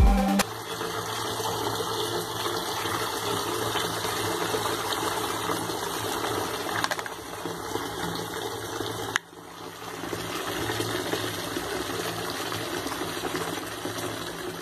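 Water running steadily into a plastic mop bucket, filling it with foaming cleaning solution. The sound drops out suddenly about nine seconds in and then starts again.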